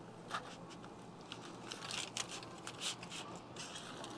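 Knife slicing through a smoked beef short rib on a cutting board: a run of faint short scrapes and clicks, mostly between about one and three and a half seconds in.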